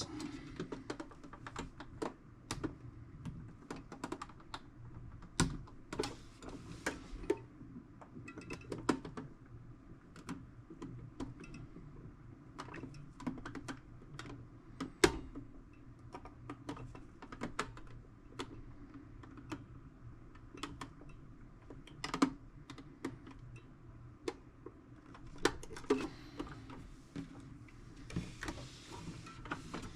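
Irregular small clicks, taps and scrapes of a knife blade prying at parts stuck fast in a toolbox, with a few sharper snaps among them.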